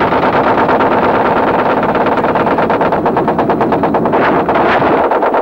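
Helicopter rotor chopping in a fast, steady beat of about ten blade slaps a second, over the engine.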